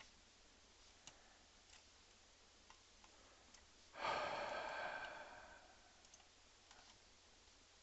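A person sighs once, about four seconds in: a breathy exhale that fades out over about a second and a half. Faint mouse clicks before and after.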